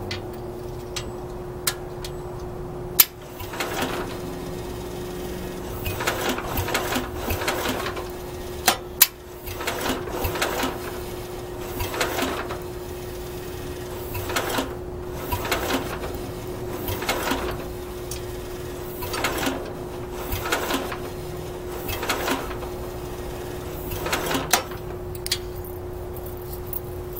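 Bolens 1050 garden tractor's engine being cranked over by its starter-generator in repeated short bursts of a second or two, pulsing with each turn, without catching. A slipping starter-generator belt is part of the trouble.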